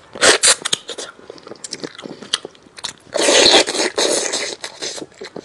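Close-up mouth sounds of someone biting and chewing steamed chicken: quick wet clicks and smacks, loud right at the start, with a longer, louder noisy stretch about three seconds in.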